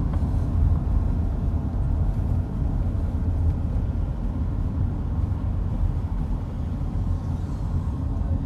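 Car engine and tyre rumble heard from inside the cabin while driving, a steady low drone with no sudden changes.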